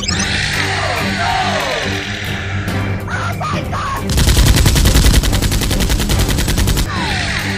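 Background music, and about four seconds in a rapid burst of machine-gun fire that lasts about three seconds and is the loudest sound.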